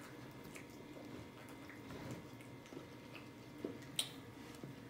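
Faint sipping and swallowing from a plastic cup, with small mouth and cup clicks; two sharper clicks come near the end.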